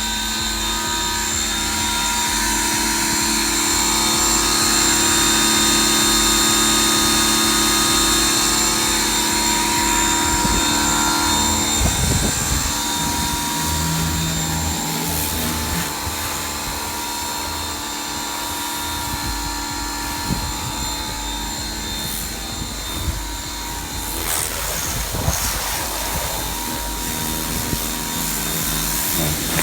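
Ryobi 1600 psi electric pressure washer running and spraying: a steady motor-and-pump whine over the hiss of the water jet, its lower tones changing a few times.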